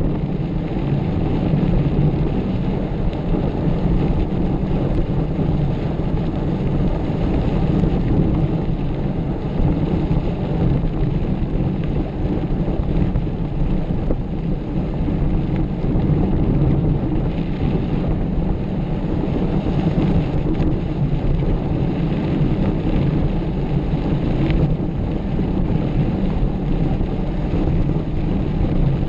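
Steady loud rumble of a mountain bike riding over a rough dirt trail, with wind buffeting the microphone.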